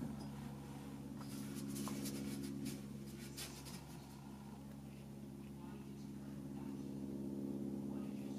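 Faint scratchy strokes of an ink-loaded paintbrush on watercolour paper, in a quick run of light clicks about a second in. A steady low hum runs underneath.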